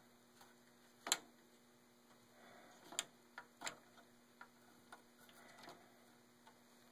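A handful of faint, irregular sharp clicks and taps from a hand working the edge of a ClockTHREE LED clock circuit board. The loudest click comes about a second in, and a cluster follows a little later, over a faint steady electrical hum.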